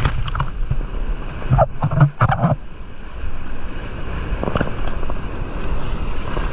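Sea surf and churning water, with wind buffeting the microphone as a steady low rumble.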